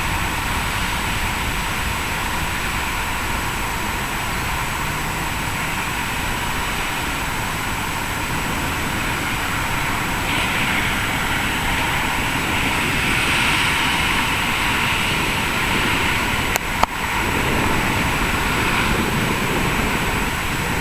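Jet engines of a Boeing 767 cargo jet, a steady rush that grows somewhat louder and brighter about halfway through. Two sharp clicks come near the end.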